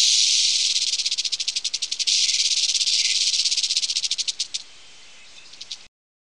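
A snake's rasping warning buzz: a dry, high hiss that pulses rapidly and unevenly, thinning out about four and a half seconds in and stopping just before six.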